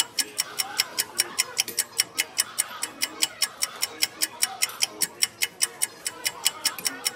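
Rapid, even ticking, about five sharp ticks a second, like a clock or timer sound.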